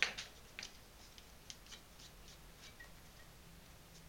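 A sharp click, then a scattering of light, irregular clicks and taps from small objects being handled on a workbench.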